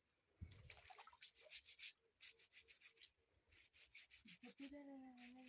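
Wet clothes being scrubbed by hand, cloth rubbed against cloth in quick rhythmic strokes, faint. Near the end a low voice-like tone is held steady for about a second.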